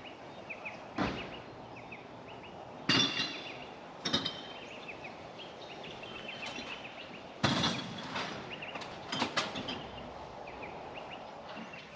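Small birds chirping repeatedly, with several louder, sudden harsh sounds about one, three, four, seven and nine seconds in.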